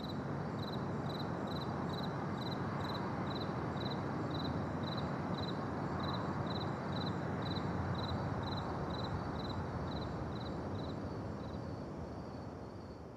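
Crickets chirping in a steady rhythm, about two chirps a second, over a steady outdoor background hiss; the sound fades out near the end.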